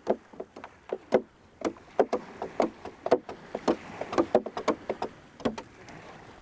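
Tools knocking on the hollowed wooden hull of a freshly carved dugout canoe: a rapid, irregular run of sharp wooden knocks, about four a second, some louder than others. This is the hull being struck and tapped while it is shaped and its wall thickness is checked.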